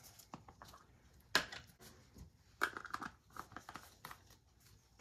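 Faint handling noise: rustling and light clicks from gloved hands working a small plastic jar of mica powder, with sleeve fabric brushing. The sharpest click comes about a second and a half in.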